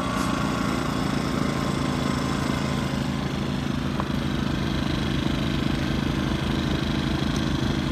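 Small portable inverter generator's engine running steadily at a constant speed, a fast, even low pulse under a hum.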